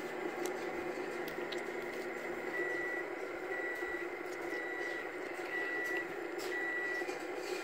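Five short, high electronic beeps, about one a second, starting a few seconds in, over a steady low hum.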